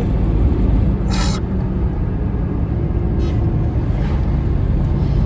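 Steady low engine and road rumble inside a moving car's cabin, with a brief hiss about a second in.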